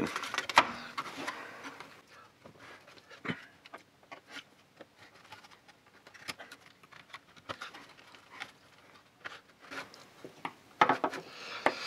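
Scattered small clicks and taps of hands handling the plastic housing of an opened emergency LED light and working a push-on terminal off its sealed lead-acid battery, with quiet room tone between.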